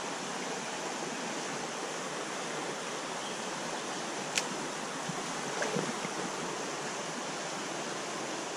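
Steady rush of a small trout creek's water flowing over a riffle, with one sharp click about halfway through.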